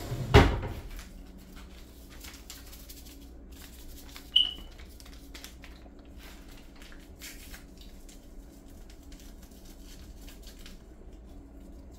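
A thump about half a second in, then light crinkling and tearing as a small Sazon seasoning packet is torn open and shaken out over a pot, with a short high squeak about four seconds in.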